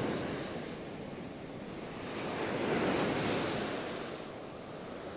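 Ocean surf breaking and washing up the beach, one wave swelling louder about halfway through and then easing off.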